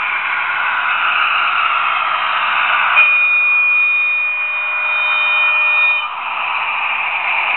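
Sound decoder of a Trix HO-scale DB V 100 diesel locomotive model playing its diesel running sound as a steady, hissy noise through its small speaker. About three seconds in, a steady multi-tone horn sounds for about three seconds and cuts off sharply.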